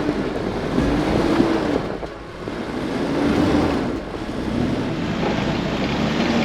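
Off-road vehicle engine revving up and down in several rising-and-falling swells over a steady rushing noise.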